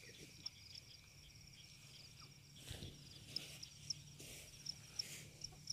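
Faint chirping of a field cricket, short high-pitched chirps repeated irregularly and coming more often in the second half, with brief rustling of leaves and grass as the vegetation is pushed aside.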